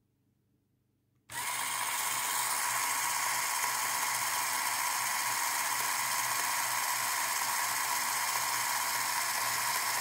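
Lego Powered Up electric motor starting suddenly about a second in and running steadily, turning a Lego Technic chain drive and sprockets that spin the back wheel, with the chain on the fourth back sprocket. A steady whir of the small motor and plastic gear train.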